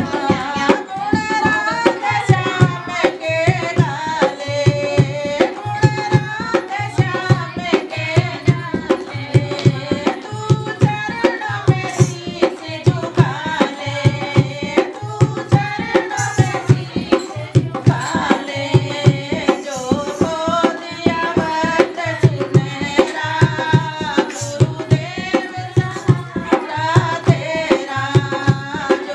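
Women singing a Hindi devotional bhajan together to a steady beat on a dholak hand drum.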